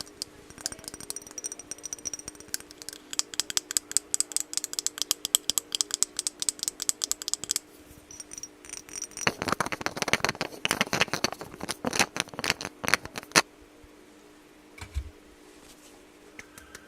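Close-miked ASMR tapping and rattling on makeup packaging: quick light clicks, several a second, in two long runs, the second louder, over a faint steady hum. A single soft thump comes near the end.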